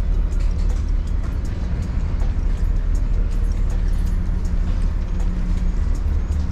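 Steady low rumble of the ferry Sunflower Cobalt's engines and ventilation inside a passenger corridor, with light footsteps at a walking pace.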